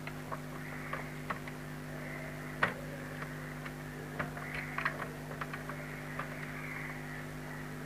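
Multimeter test probe tips clicking and tapping against the metal socket contacts of an extension box, with the loudest tap about two and a half seconds in and a quick cluster near the five-second mark, over a steady low hum.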